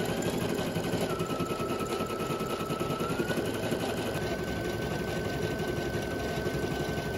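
Brother Innovis NV880E embroidery machine stitching out a design, a rapid, even needle clatter. A thin steady whine runs above it, dipping slightly about a second in and rising back around three seconds in.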